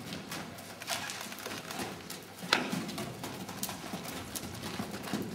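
Hoofbeats of a pinto pony going round on a lunge line over soft arena footing, a run of dull repeated knocks, with one sharper click about two and a half seconds in.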